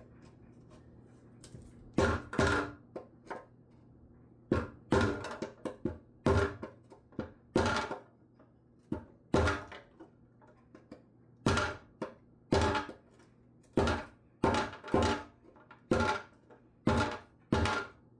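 Hammer blows on a Toyota 1HD-T engine's oil pan, about two dozen sharp ringing strikes at an uneven pace of one or two a second, some in quick pairs: the dented pan around the drain plug is being tapped flat.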